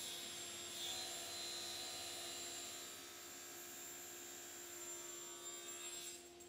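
Table saw running, its blade trimming the edge of a sycamore slab set with carbon-fibre-filled epoxy: a steady hum under a high hiss of cutting. The hiss drops away shortly before the end as the cut finishes, leaving the hum.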